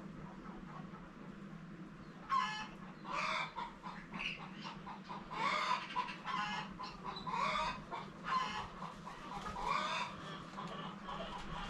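Chickens clucking, a run of short repeated calls that starts about two seconds in.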